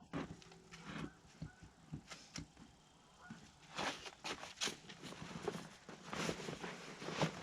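Irregular knocks, clicks and scrapes of rocks being handled and set in place, with the crunch of footsteps on soil. The knocks come thicker from about halfway in.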